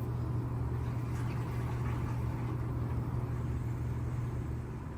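LG inverter direct-drive top-loading washing machine running its wash cycle, full of hot water: a steady low hum with a noisy wash sound over it.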